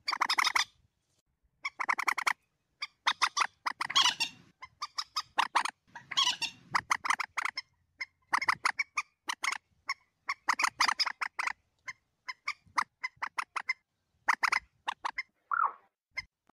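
Common moorhen lure call: bursts of rapid, clicky chattering notes, each burst about a second long and separated by short pauses, with one short lower call near the end.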